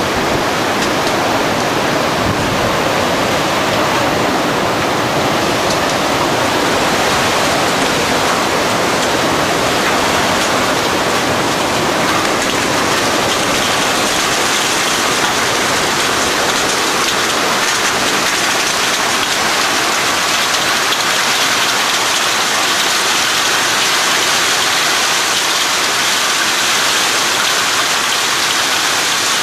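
Heavy storm rain pelting down on a surface, a loud, steady, dense hiss with no let-up.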